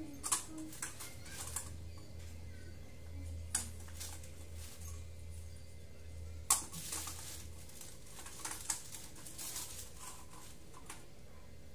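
Scattered rustling and sharp light clicks from hands handling a plastic bag and small decorations, the loudest click about six and a half seconds in, over a low hum that stops about eight seconds in.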